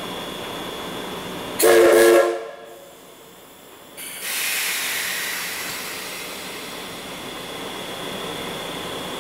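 Steam whistle of the JNR Class D51 steam locomotive D51 498 gives one short blast about two seconds in, over a steady background hiss. About two seconds later a loud rush of hissing steam starts suddenly and fades slowly.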